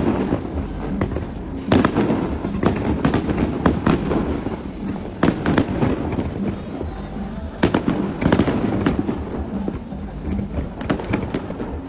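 Aerial fireworks display: shells bursting in a rapid, irregular string of sharp bangs and pops. The loudest bangs come a little under two seconds in, around four and five seconds, and near eight seconds.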